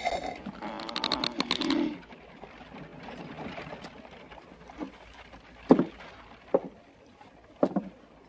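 Faint background noise with a busier patch of rustling noise in the first two seconds, then a few scattered sharp knocks in the second half.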